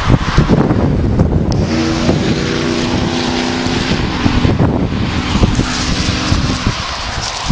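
Wind buffeting the microphone, with a steady engine hum, like a passing motor vehicle, from about two seconds in until near the end.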